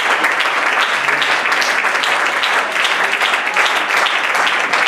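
A church congregation applauding: dense, steady clapping.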